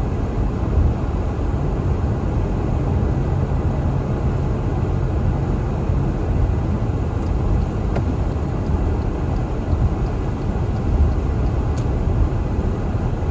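Steady road and engine noise of a car driving through snow and rain, heard from inside the cabin: a low, even rumble, with faint light ticks in the second half.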